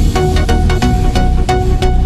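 Electronic background music with a steady beat, about three beats a second.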